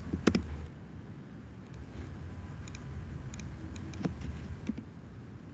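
Scattered clicks and taps of a computer mouse and keyboard, irregularly spaced, over a faint low background hum.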